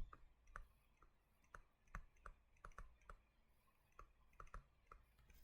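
Faint, irregular light clicks and taps, about three a second, from a pen or stylus as it writes.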